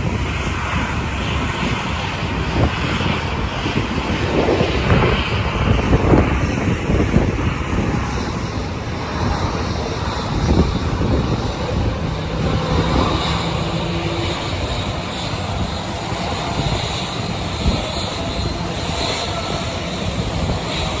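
Jet engines of an Airbus A320neo (CFM LEAP-1A turbofans) running, a steady jet noise with a faint high whine, mixed with gusty wind rumble on the microphone.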